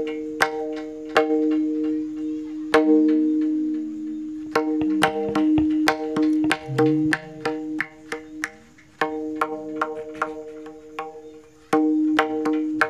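Indian tuned hand drum playing an instrumental interlude in a devotional bhajan: quick runs of sharp ringing strokes, with low bass strokes that bend in pitch, broken by short pauses.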